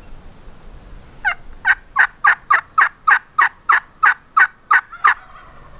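A loud, steady series of about thirteen turkey yelps, roughly three a second, each note breaking downward from high to low. It starts about a second in and stops about a second before the end.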